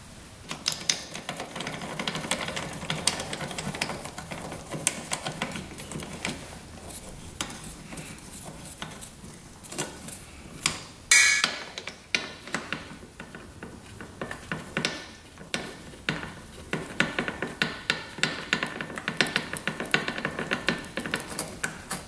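Hand tools and head bolts clinking and clicking on the cylinder head of a 2001 Yamaha WR250F engine as the head is bolted down. There is one sharp metallic knock about halfway through, and runs of quick, even clicks near the end.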